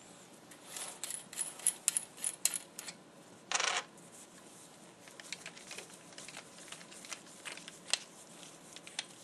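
Light metallic clicks and taps from a torque wrench and hand tools being handled while the wrench's calibration adjuster is loosened and turned: a quick run of clicks over the first few seconds, a brief scrape, then scattered fainter clicks.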